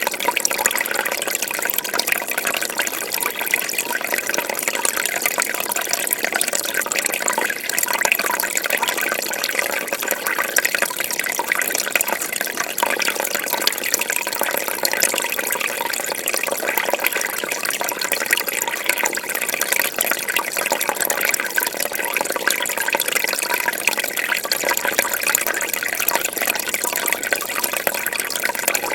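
Fish tank water bubbling and trickling steadily, a continuous fizz of many small pops and splashes.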